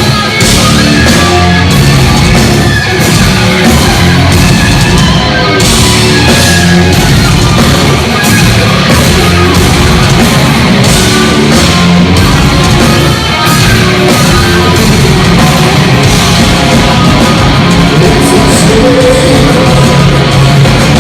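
A heavy rock band playing a song live at full volume, driven by electric guitar.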